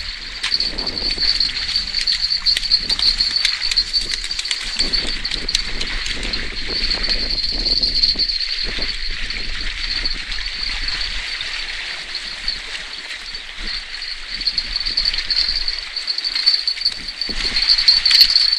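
Steady, high-pitched insect chirring over outdoor ambience, with scattered small knocks and rustles.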